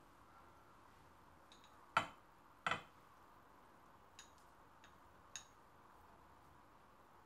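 A small glass bowl and chopsticks clinking against each other and the rim of a saucepan as smoked salmon is tipped in. Two sharper clinks come about two seconds in, followed by a few light clicks.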